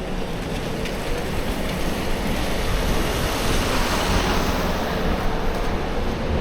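Snowstorm street noise: a steady low rumble of city traffic with wind, and a hiss that swells and fades around the middle.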